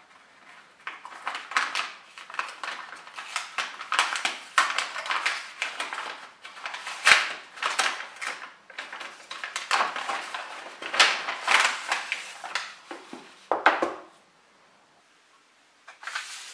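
Paper mailing envelope crinkling and rustling in irregular bursts as hands open it and handle it. The rustling stops about two seconds before the end, and one short rustle follows.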